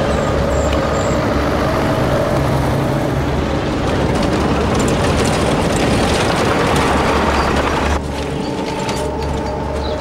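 A vehicle running with a steady low rumble and road or engine noise. The sound changes abruptly about eight seconds in, losing much of its hiss.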